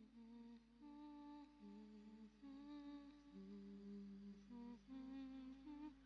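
Faint wordless humming of a slow melody, one held note after another.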